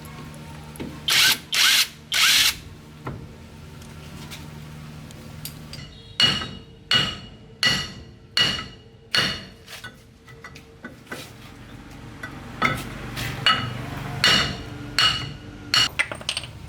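Hammer blows on metal, a series of sharp ringing strikes about one every 0.7 seconds. Before them come three short bursts of a power tool.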